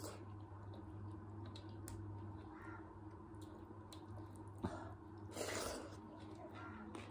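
Eating sounds: soft chewing and mouth noises with fingers mixing rice on a metal plate, over a steady low hum. A sharp click comes about halfway through, followed by a short, louder noisy sound.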